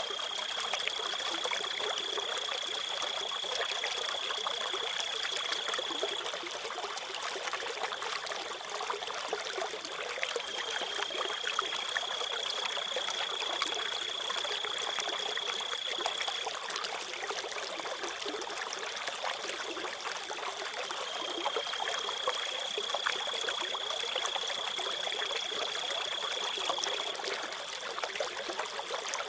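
Crickets trilling over steadily trickling stream water. The trill is one high, steady tone that lasts about six seconds at a time, with pauses of about four seconds between, three times over.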